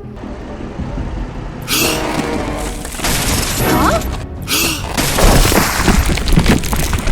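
Background music, joined about two seconds in by loud crashing, rumbling sound effects that go on with a short break near the middle.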